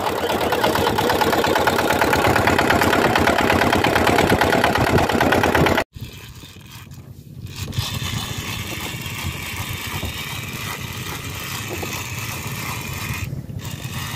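A small fishing boat's engine running under way, loud with a fast, even firing. About six seconds in the sound cuts out for an instant and comes back quieter and steadier.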